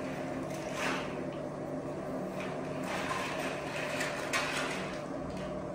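Hands rolling and sliding a twisted rope of floured baklava dough across a glass tabletop: a few soft rubbing swishes of palms and dough on glass, over a steady machine hum.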